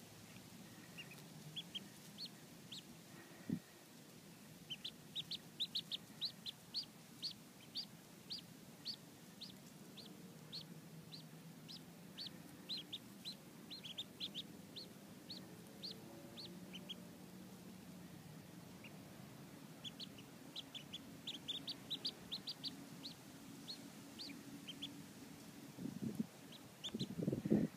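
Cayuga ducklings peeping: runs of short, high peeps, two or three a second, with pauses between the runs. A few low thumps come near the end.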